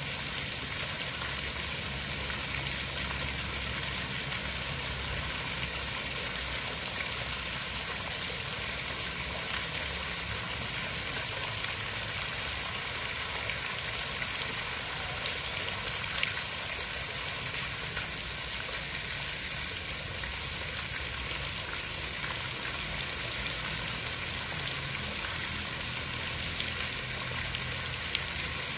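Steady, even hiss of water with a low rumble underneath and a few faint ticks.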